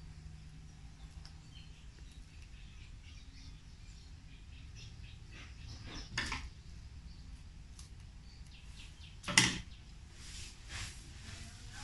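Fresh coconut-leaf strips rustling and crackling as they are woven by hand into a hat brim. There are many small crackles, then two louder, sharper rustles about six seconds in and again about three seconds later; the second is the loudest.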